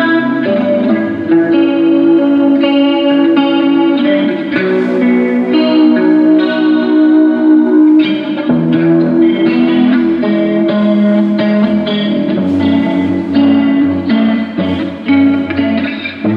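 Electric guitar played through a Zoom GFX-4 multi-effects processor: a run of chords and notes that change every half second to a second.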